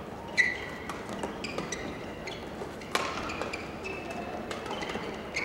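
Badminton rally: rackets strike the shuttlecock with sharp cracks, the loudest about half a second in and at about three seconds, with short squeaks from the players' shoes on the court mat between the hits.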